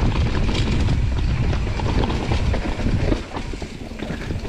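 Mountain bike rolling over a rocky, rooty trail: scattered knocks and rattles from the bike over a steady rumble of wind buffeting the camera's microphone, a little quieter in the last second or so.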